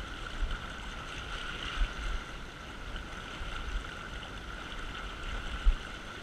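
Fast river current rushing steadily around a wading angler's legs, with irregular low thumps and a sharper knock near the end. The current is pushing hard against the wader.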